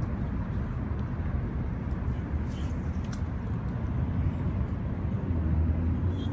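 Steady low outdoor rumble with a few faint ticks about two and a half to three seconds in.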